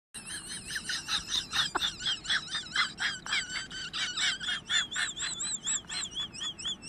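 Rapid high-pitched chirps, about two to three a second, under a whistle-like tone that warbles up and down and grows clearer in the second half.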